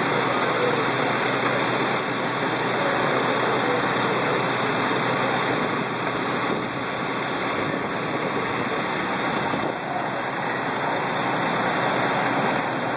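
Fire apparatus engine running steadily, a constant rushing noise with no distinct knocks or changes.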